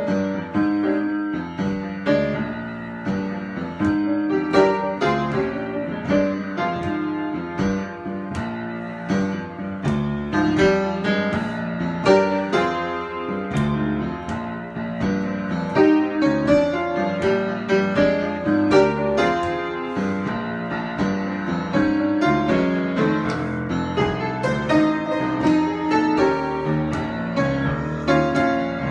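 Solo piano improvisation: a continuous flow of chords and melody notes struck one after another.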